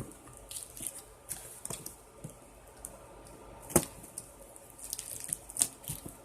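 Packing tape and cardboard on a taped-up shipping box being picked at and pulled by hand: scattered scratches and small ticks, with a sharp click about halfway through and another near the end.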